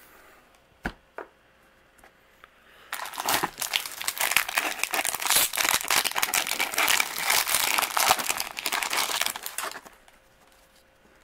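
Shiny foil wrapper of a baseball-card jumbo pack crinkling and tearing as it is opened, for about seven seconds, after a couple of soft clicks in the first seconds.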